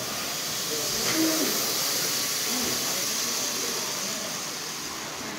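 Steady background hiss of a room's ambience, with faint indistinct voices now and then.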